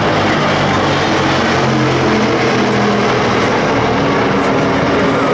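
Two Tupolev Tu-95 bombers passing overhead. Their Kuznetsov NK-12 turboprops with contra-rotating propellers make a steady, loud drone with several low, even tones.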